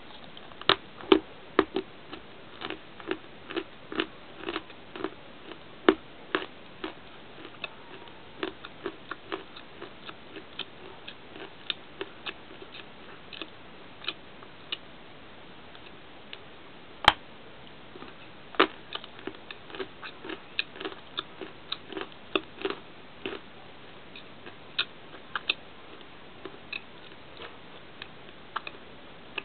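Biting and chewing a crunchy bar close to the microphone: irregular sharp crunches and crackles, with one louder crack about seventeen seconds in.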